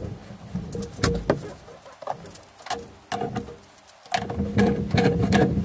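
Hand tools clinking and knocking on the steel of a hydraulic ram cylinder during reassembly: a scatter of sharp metallic taps. A low droning sound sits underneath at the start and returns about four seconds in.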